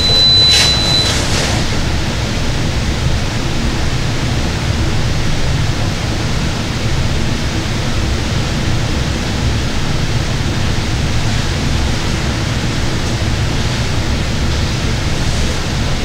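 Steady rushing of a small waterfall pouring into a rocky pool. A short high-pitched tone sounds in the first second.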